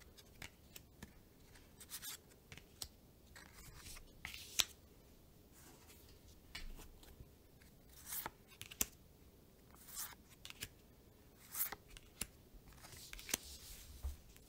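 Pokémon trading cards being flipped through by hand, each card slid across the others in the stack: faint, short papery swishes and flicks at irregular intervals.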